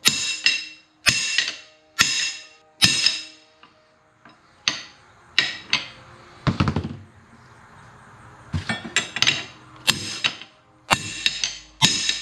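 Claw hammer striking a steel wrench held against a hydraulic cylinder's gland: sharp metal-on-metal taps that ring, tapping the gland back out toward the end of the cylinder tube. About one tap a second at first, a short pause around four seconds in, then quicker clusters of taps toward the end.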